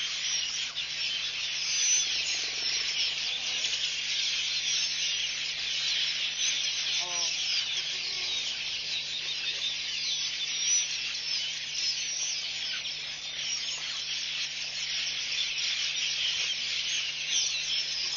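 Dense, steady high-pitched chorus of insects and birds from the bush, over a faint steady low hum, with one brief lower call about seven seconds in.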